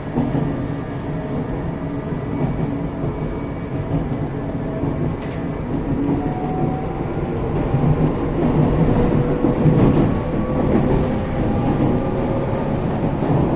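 Electric passenger train running, heard from inside the saloon: a steady rumble of wheels and running gear. From about halfway a whine rises slowly in pitch and the sound grows a little louder as the train gathers speed.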